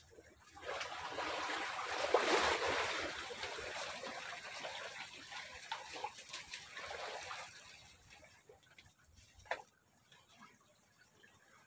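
Water splashing and trickling for several seconds, loudest about two seconds in and then fading away, followed later by a single sharp click.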